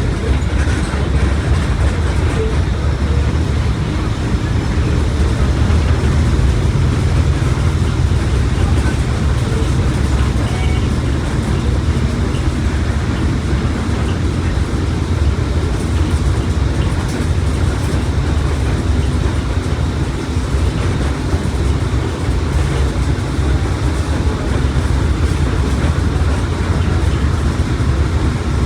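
Mercedes-Benz OF1721 BlueTec 5 bus underway: its front-mounted diesel engine and drivetrain give a steady, deep rumble mixed with road and tyre noise.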